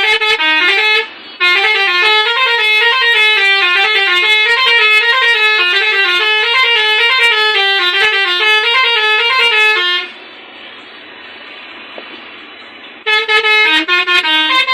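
Basuri six-trumpet telolet bus horn playing a fast, stepping multi-note melody, with a brief break about a second in. About ten seconds in the tune stops, leaving a quieter steady hiss for about three seconds before the horn melody starts again near the end.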